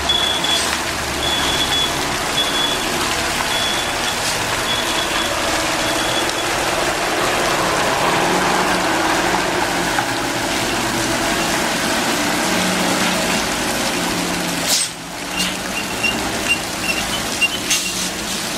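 Diesel trucks running as they work slowly through a tight hairpin bend, with a repeating high electronic beep from a truck's warning alarm for the first several seconds and again near the end. A short sharp air-brake hiss cuts in about fifteen seconds in.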